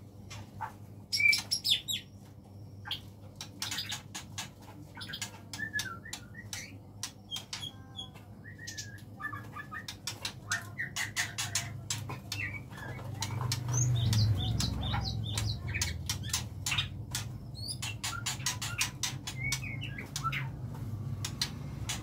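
White-rumped shamas (murai batu) flapping their wings in an aviary, with many short chirps, squawks and sharp clicks scattered throughout, over a steady low hum.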